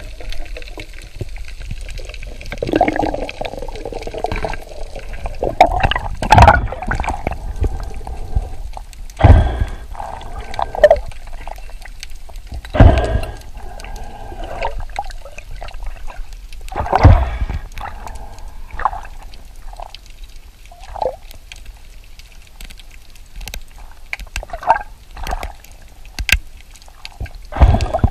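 Water sloshing and bubbling as heard by an underwater camera, with irregular louder surges every few seconds.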